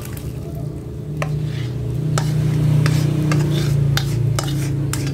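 Vegetable soup pouring from a metal pot into a glass bowl, then the last vegetables scraped and knocked out of the pot, with a string of sharp clicks of metal against the pot and the glass. A steady low rumble runs underneath, growing louder about a second in.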